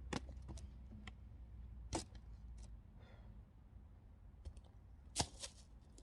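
A few sharp knocks of wood on wood, three main ones about two and three seconds apart with the loudest near the end, and lighter clicks between: split firewood being handled or struck.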